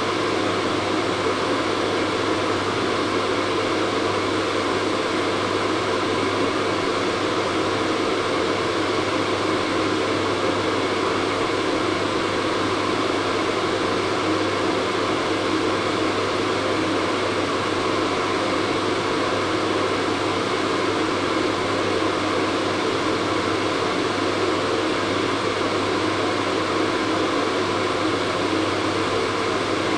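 Hair dryer running steadily: an even rush of blown air with a low motor hum underneath, unchanging throughout.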